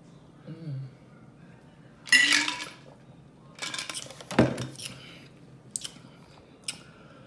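Close-up eating and handling sounds of takeout food and its containers: a short loud sound about two seconds in, then a spell of rustling and handling with a sharp clack, and two single clicks near the end.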